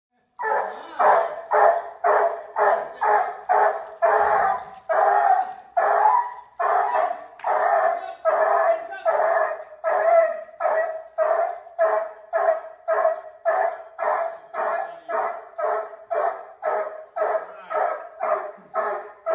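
A hound barking over and over in a steady rhythm, about two barks a second: reactive barking at another dog.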